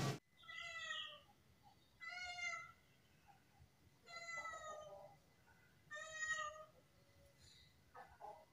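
A kitten meowing repeatedly, four meows about two seconds apart. The kitten is stuck up on the roof beams and is meowing to be let down.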